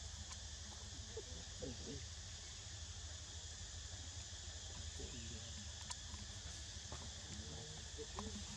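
Steady chorus of insects, a high even shrill, with a few faint, short wavering sounds at a lower pitch now and then.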